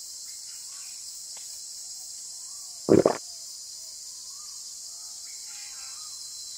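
A short, dull thump about three seconds in, over a steady high-pitched hiss.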